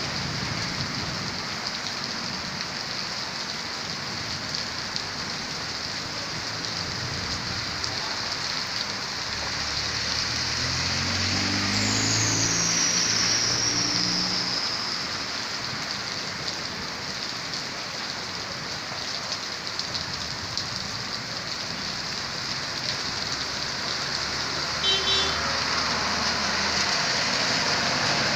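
Steady heavy rain hissing on a wet street. A car drives past on the wet road about halfway through, its engine and tyre noise swelling and fading. A short beep sounds near the end.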